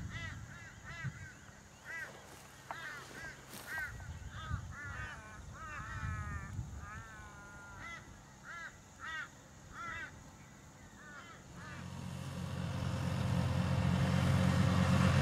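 A bird calls over and over with short arching calls, about two a second. Near the end these stop and a tractor engine fades in, running steadily and growing louder.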